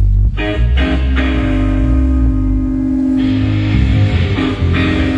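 Live band playing loud, electric guitar and bass: chords struck about a third of a second in and again near a second, held ringing over changing bass notes.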